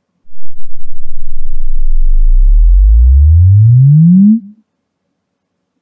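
Low-frequency sine sweep from a REW room measurement (10 Hz to 120 Hz log sweep) played through the home theater's subwoofers. It starts as a deep rumble, rises steadily in pitch over about four seconds to a low hum, then cuts off.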